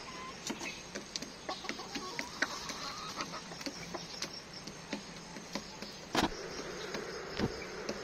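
Backyard native chickens clucking softly, with many scattered light clicks and taps throughout and one sharper knock about six seconds in.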